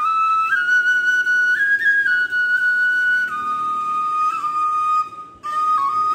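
Background music: a single sustained melody line, held notes stepping up and down, with a short break about five seconds in.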